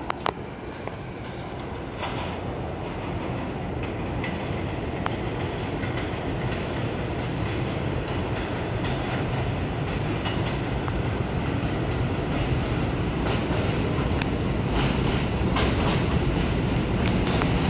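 R62 subway train approaching the station, its rumble growing steadily louder as it nears, with wheels clacking over rail joints more and more toward the end. A couple of sharp clicks sound right at the start.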